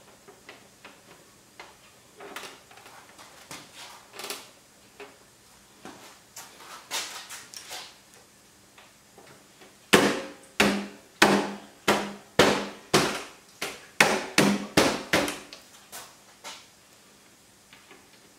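Hand smacking a 2021 Kawasaki Ninja 1000SX's plastic side fairing panel to snap it home into its clips: about a dozen sharp thumps, roughly two a second, starting about ten seconds in. Before them come quieter clicks and rustling of plastic being fitted, and a few faint clicks follow.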